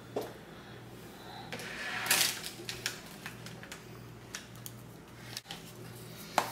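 Hands handling a plant pot and potting materials on a table: a rustle about two seconds in, with scattered small clicks and knocks.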